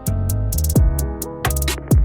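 Background electronic pop music with a deep bass line, a steady beat of hi-hats and bass drums that drop in pitch, and sustained synth chords.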